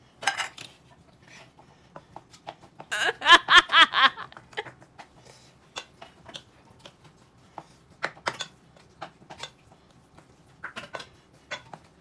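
Close-up eating sounds: chewing with irregular small clicks, like chopsticks or a spoon against a bowl. About three seconds in there is a short burst of voice.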